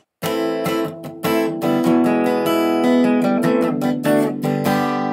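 Background music: an acoustic guitar strumming chords, with the last chord left ringing out near the end.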